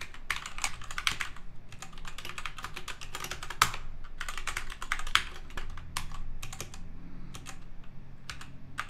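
Typing on a computer keyboard: quick, irregular runs of key clicks broken by short pauses.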